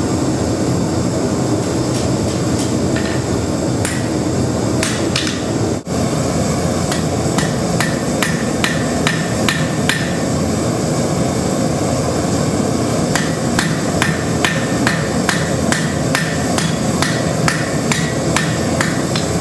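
Blacksmith's hammer striking hot steel on an anvil in runs of quick blows with short pauses between them. Underneath runs the steady roar of a landfill-gas-fired forge.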